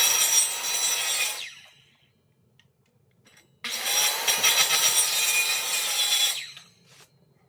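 An electric power saw cutting an oak plank in two passes. Each time the motor spins up, runs through the cut for a few seconds and winds down, with a short quiet gap between the cuts.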